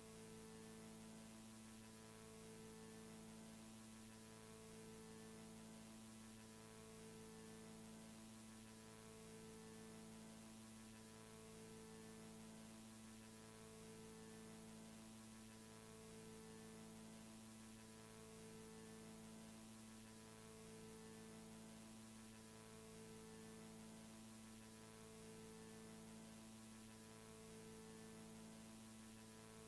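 Near silence with a faint electronic hum: a low steady drone of several tones, two of them pulsing on and off about every two seconds.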